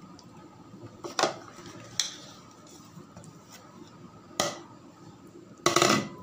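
Hand pressing wet fish-roe paste into a steel tiffin box, with sharp metallic clinks of the steel box about a second in, at two seconds and past four seconds, and a louder, longer clatter near the end.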